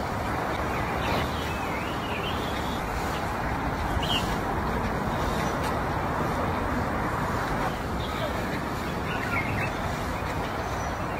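Steady outdoor background noise with a faint murmur of voices. A few short bird chirps come about a second in and again near nine seconds.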